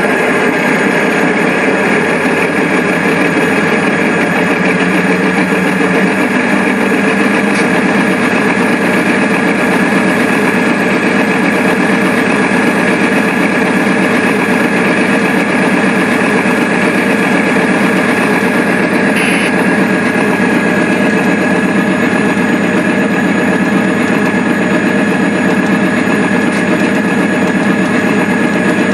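Diesel locomotive engine running steadily under a constant high whine, with no rise or fall as the coal train rolls by.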